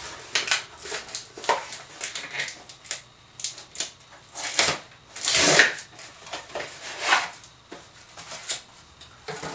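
Hands tearing open a Birchbox's cardboard packaging and rustling its paper wrapping, in irregular rips and crackles, the longest rip a little after five seconds in.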